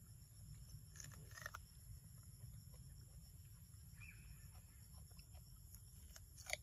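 Near silence: a low outdoor rumble with a few faint, brief chirps and clicks, and one sharp click near the end.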